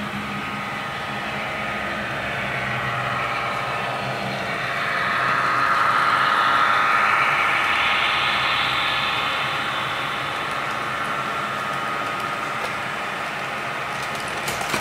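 HO scale model BNSF diesel locomotives hauling a long freight train past on the layout track. The running sound grows louder and brighter about halfway through as the locomotives pass, then steadies as the freight cars roll by behind them.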